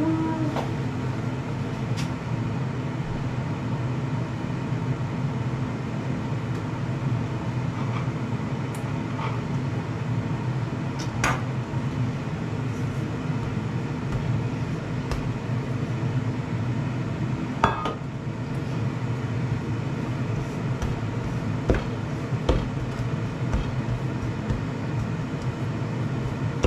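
Ninja air fryer running with a steady low hum while it preheats. A few sharp knocks and clinks on the worktop, the loudest about 11 and 18 seconds in.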